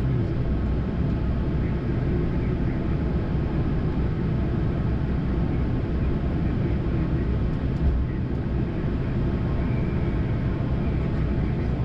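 Steady flight-deck noise of a Boeing 787-9 in flight: a continuous low rushing hum with no change.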